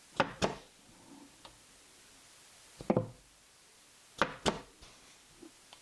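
Blind stapler clamping onto the face frame and driving staples: sharp knocks, first a close pair, then a single one about three seconds in, and another pair just past four seconds.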